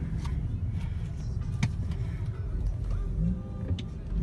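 Car engine and road rumble heard inside the cabin, with a few sharp clicks about a second and a half in and near the end.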